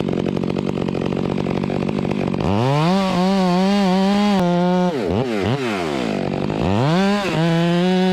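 Two-stroke chainsaw running at low throttle, then revved to a high steady pitch twice, about 2.5 s in and again near the end, with quick blips of the throttle in between.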